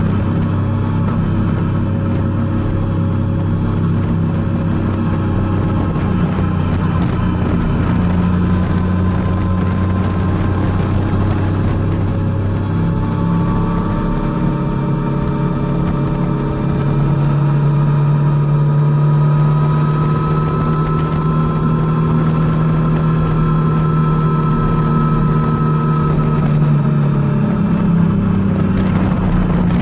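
Triumph Tiger 800's three-cylinder engine running under way, its note holding steady and slowly rising, and changing pitch once about halfway through and again near the end.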